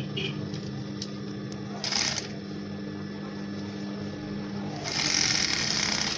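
Industrial sewing machine running steadily as it stitches a zipper flap onto cotton fabric, stopping about five seconds in, followed by a burst of fabric rustling as the cloth is handled.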